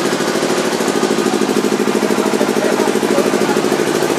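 Combined slotter and die-cutter machine for corrugated board running: a steady mechanical hum with a fast, even pulsing.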